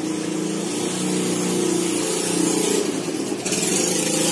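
Steady engine hum with a few pitched tones, and a louder hiss coming in about three and a half seconds in.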